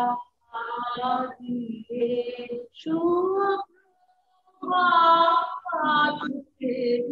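A woman singing a song unaccompanied, in phrases of long held notes with short silent breaks between them.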